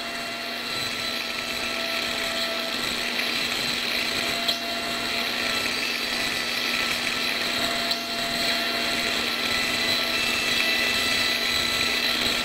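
High-speed otologic surgical drill with a diamond burr running steadily while it grinds temporal bone along the posterior semicircular canal. It makes a steady whine of several pitches over a hiss, with a few faint clicks.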